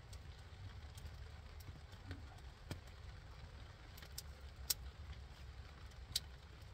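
Small wood campfire crackling, a few sharp pops scattered over a low steady rumble.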